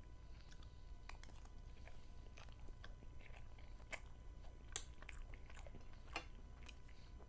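A person chewing macaroni pasta close to a lapel microphone, with faint irregular clicks and taps of a fork against a ceramic plate.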